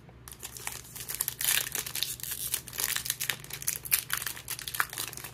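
Foil wrapper of a Panini baseball card pack being crinkled and torn open by hand: a dense run of irregular crackles that begins a moment in.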